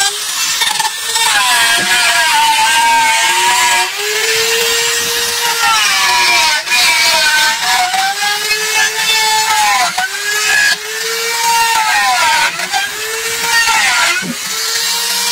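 Angle grinder grinding the end grain of a large round wooden slab. There is a steady grinding hiss, and the motor's whine dips and rises in pitch over and over as it is pressed into the wood and eased off.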